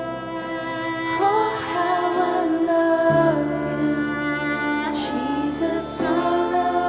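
Live worship band music: sustained chords with bass notes, changing about three seconds in, and a wordless singing voice wavering over them.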